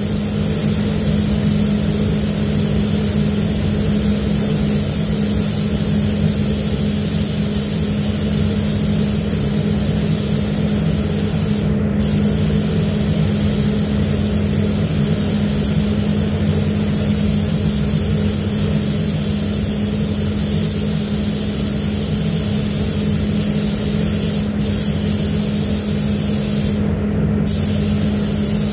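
Air spray gun hissing steadily as the painter sprays a car door, over the constant hum of the paint booth's ventilation fans. The hiss cuts out briefly once midway and a few times near the end as the trigger is let off.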